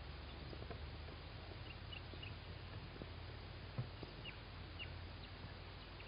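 Nest-box camera audio: a steady low electrical hum and hiss, with a few faint short chirps and a soft knock a little before the middle, as the tawny owl chicks shift in the box.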